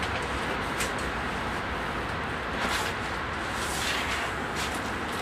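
Steady background hiss and hum with a few brief knocks and scrapes, about a second in, again near the middle and around four seconds in, from flat-pack desk parts being handled and pulled out of a car's back seat.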